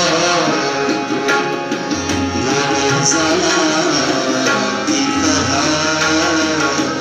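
Ghazal accompaniment played live: tabla drumming under harmonium and acoustic guitar, with a melody line that glides in pitch and plays on without a break.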